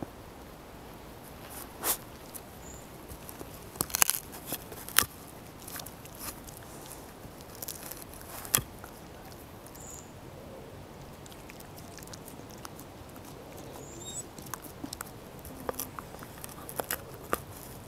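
A Puli dog gnawing a wooden stick: irregular sharp cracks and crunches of wood between its teeth, the loudest a few seconds in, with sparser, softer ones near the end.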